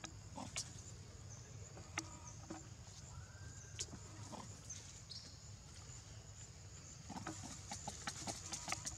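Faint outdoor ambience with a steady high drone. A newborn macaque gives a short, faint cry about three seconds in, and leaves rustle with handling noises near the end as its mother gathers it up.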